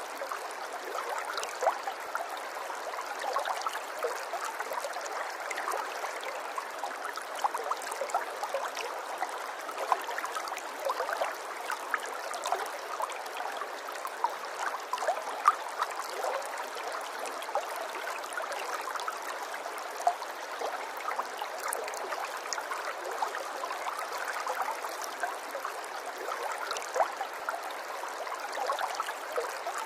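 Running water babbling steadily, with many small gurgles and splashes and no deep rumble.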